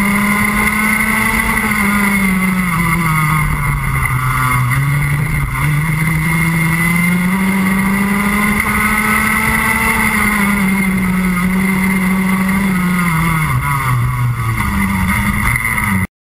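Rotax Max Junior 125cc single-cylinder two-stroke kart engine at racing speed, heard from on board the kart, its revs climbing and dropping several times as it accelerates out of the corners and backs off into them. The sound cuts off suddenly near the end.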